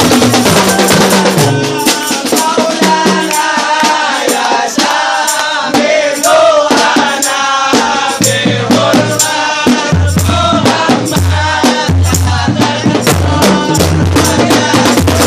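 Marching drum band playing: fast, dense rattling percussion with a pitched melody over it in the middle, and deep bass drum beats joining about halfway through.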